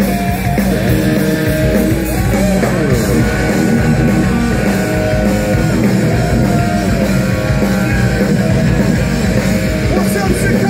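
Rock band playing loud live hard rock: distorted electric guitar over bass guitar and drums, the guitar notes sliding and bending in pitch.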